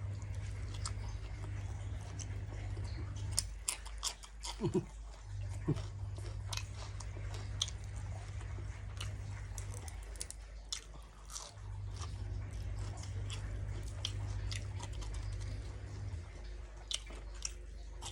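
A person eating close to the microphone: chewing and crunching mouthfuls of nam tok moo, with many short, sharp clicks throughout. A low hum comes and goes underneath.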